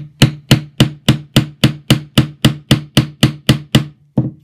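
Steel claw hammer tapping lightly on a small steel punch held to a wooden chess knight, about sixteen even taps close to four a second, with one last tap near the end. The gentle strokes make a shallow dot for the knight's eye without damaging the wood.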